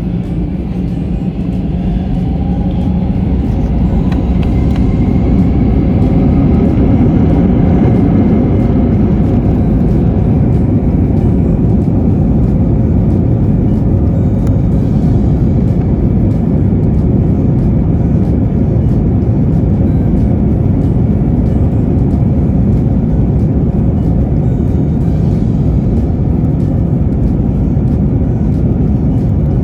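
Airliner jet engines spooling up, heard from inside the cabin, with a rising whine over the first few seconds that settles into a loud, steady rumble of takeoff thrust.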